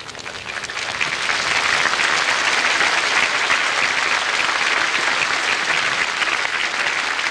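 Large open-air crowd applauding, swelling over the first second and then holding steady.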